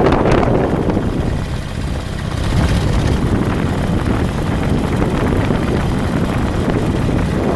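Wind buffeting the camera microphone on a moving vehicle, a steady low rumble of wind and road noise with no clear engine note.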